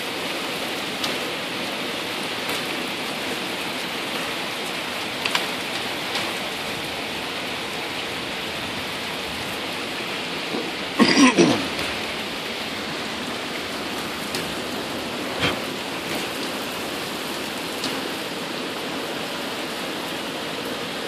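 Heavy rain pouring steadily, with scattered sharp ticks of drops striking close by. About halfway through, one short, loud sound falls in pitch.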